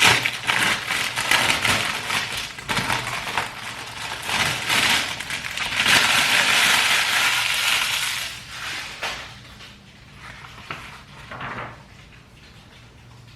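Sealed plastic packaging crinkling and crackling as it is handled and opened by hand, with a louder continuous crackle of about two seconds starting about six seconds in, then quieter rustling.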